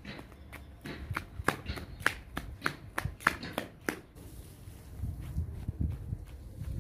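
Footsteps on a paved driveway, quick sharp steps about three or four a second. They stop about four seconds in, and a low rumble follows near the end.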